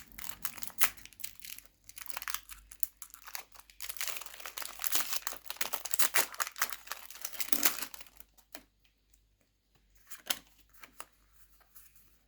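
Foil wrapper of a Pokémon trading-card booster pack crinkling as it is handled, dense and crackly for about the first eight seconds, then a few faint ticks.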